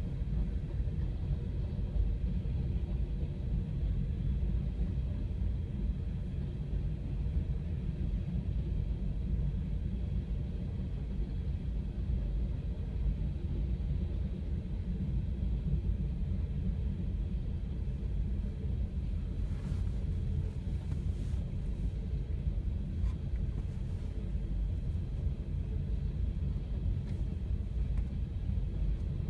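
Steady low rumble of a train rolling through a level crossing, heard from inside a car waiting at the crossing.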